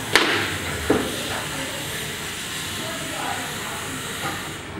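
Two sharp handling knocks, about a second apart near the start, as a plastic airsoft rifle stock and a cordless drill are picked up and set in position, over a steady background hiss.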